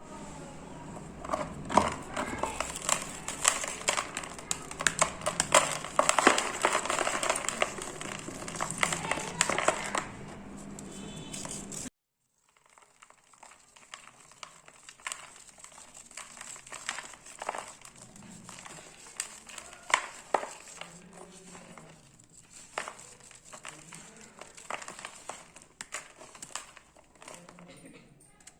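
Blocks of dry cement being crumbled by hand, a dense gritty crunching and crackling. After a brief cut to silence about halfway through, the crumbling goes on quieter and sparser.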